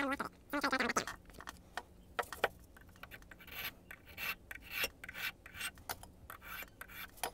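A file rasping across a key blank held in a pin vise, in short irregular strokes about two a second, with a brief squeal of the file on the metal in the first second. The strokes cut down the marks left on the blank while impressioning a pin-tumbler lock, to reach each pin's depth.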